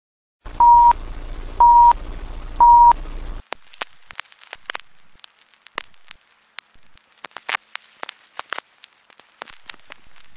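Title-intro sound effect in the style of an old film leader: three short, steady beeps about a second apart over a low hum. At about three and a half seconds in the hum cuts off and gives way to scattered crackles and pops like worn film or a scratched record.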